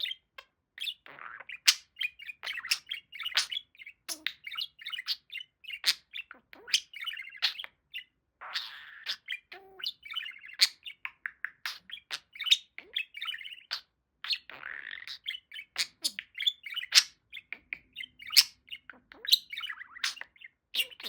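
Pet budgerigar warbling and chattering without pause: a fast, busy run of chirps, squeaks and sharp clicks.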